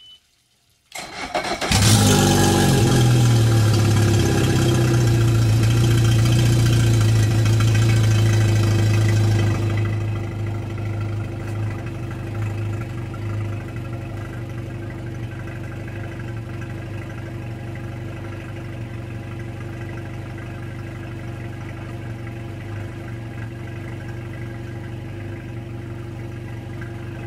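A 2007 Mercury 115 hp four-stroke outboard motor cranks briefly and starts about a second in. It runs loudly at first, then settles about ten seconds in to a quieter, steady idle.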